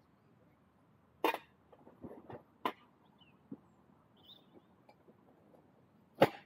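Sharp knocks and clanks from a portable hot-tent wood stove being handled and packed away: one a little over a second in, another near three seconds, and the loudest just before the end, with softer small knocks between.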